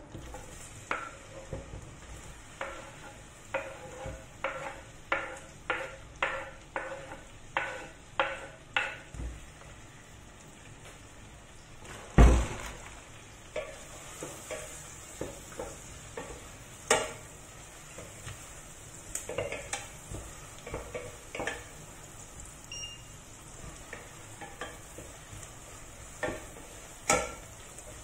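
Chopped onion sizzling in hot fat in a stainless steel pot, stirred with a wooden spoon. A run of regular scraping strokes against the pot fills the first several seconds, and there is one sharp knock about twelve seconds in.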